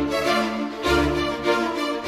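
Background music: bowed strings over a steady low beat.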